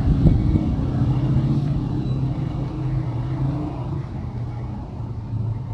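Low engine rumble of road traffic, slowly fading.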